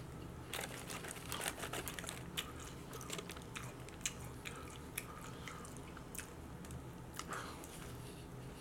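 Chewing and smacking food: irregular wet mouth clicks and crunches, with a bite into a cheeseburger near the end.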